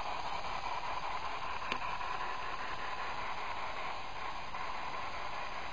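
Steady recording hiss in a quiet room, with one faint click a little under two seconds in.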